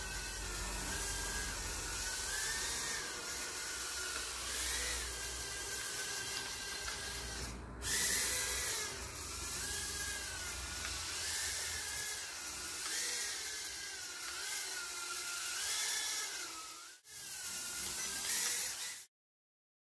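Eachine E010 micro quadcopter hovering, its brushed motors and small propellers giving a high whine that wavers up and down in pitch as the throttle keeps correcting. The sound cuts off about a second before the end.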